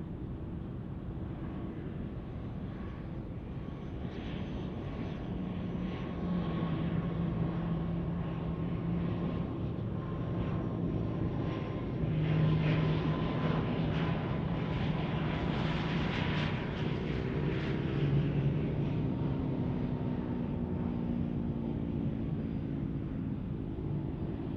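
ATR 72-600 turboprop airliner's twin Pratt & Whitney PW127 engines and propellers droning on final approach, growing louder as it nears. A low steady hum sits under a thin whine that slowly falls in pitch.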